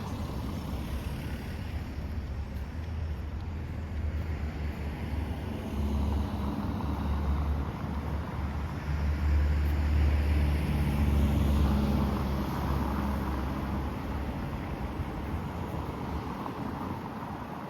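Strong wind buffeting the microphone as a deep rumble that swells to its loudest about halfway through, then eases.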